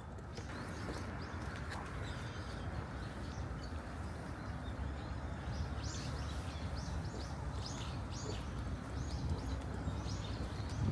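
Small birds chirping: many short, high calls scattered throughout, coming more often in the second half, over a steady low rumble.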